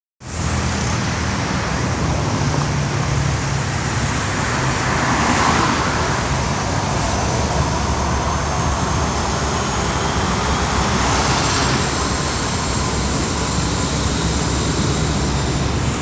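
Jet airliner's engines running, a loud steady rumble with a faint high whine, over road traffic noise; it swells slightly twice.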